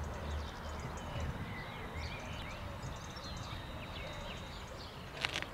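Birds chirping and calling over a low, distant rumble that fades within the first second or so, with a single sharp knock near the end.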